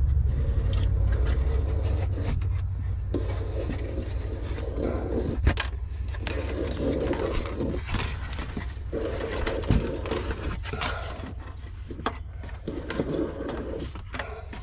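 Hands working on plastic trim and wiring: irregular scraping and rustling with a few sharp clicks, over a steady low rumble.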